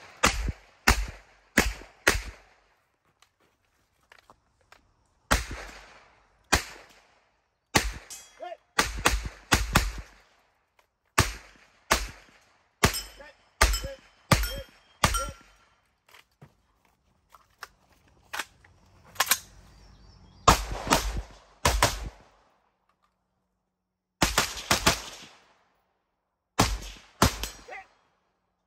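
Gunshots from a pistol and a rifle, fired in quick pairs and short strings with pauses between them, each shot echoing briefly.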